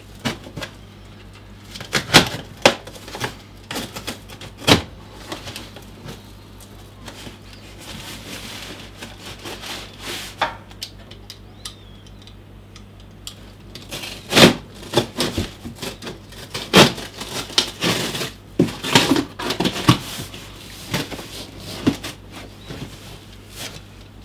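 Hands working inside a large cardboard box, rustling plastic wrapping and cardboard packing, with sharp knocks scattered irregularly throughout. A steady low hum runs underneath.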